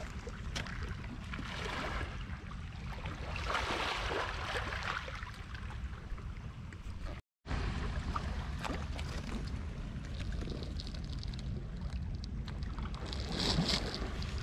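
Wind rumbling on the microphone over the wash of surf on the shore, the wash swelling a few seconds in and again near the end. The sound cuts out completely for a moment about halfway.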